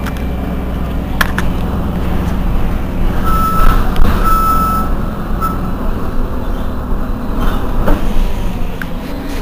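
Heuliez GX 127 city bus's diesel engine idling steadily while the bus stands still. About three seconds in, a high warning beep sounds a few times, one of them long, and a couple of sharp knocks come about a second in and near the end.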